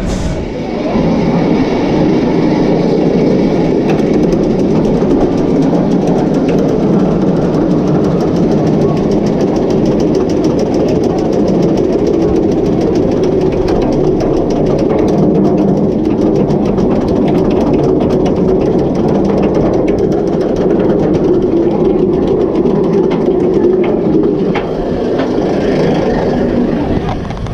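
B&M wing coaster train climbing its chain lift hill, with a steady rumble and rapid clicking running through it. The sound eases slightly near the end as the train nears the crest.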